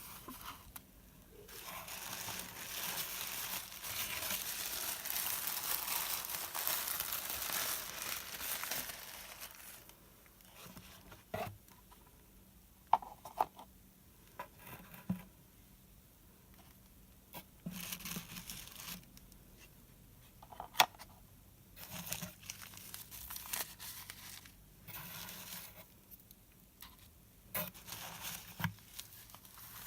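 Packaging crinkling and tearing steadily for about eight seconds, then scattered light knocks, clicks and short rustles as items are taken out of a subscription box and set down.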